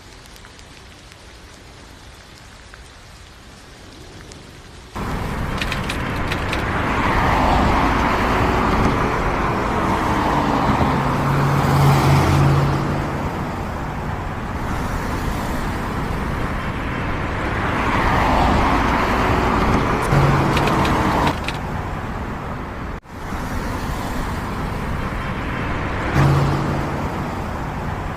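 Road traffic on a wet street: vehicles passing with tyre hiss and engine hum, the noise swelling and fading twice. For the first few seconds only a quieter hiss is heard, then the traffic noise comes in suddenly and loud.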